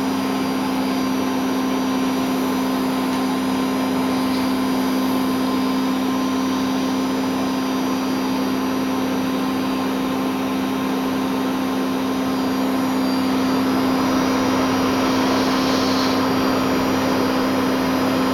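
Vacuum cleaner (hoover) running steadily with a constant motor hum and a rush of sucked air, getting slightly louder in the last few seconds.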